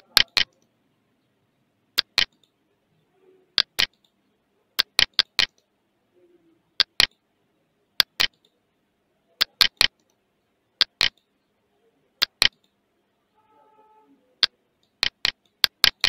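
Sharp computer mouse button clicks, mostly in quick pairs, coming every one to two seconds with quiet between.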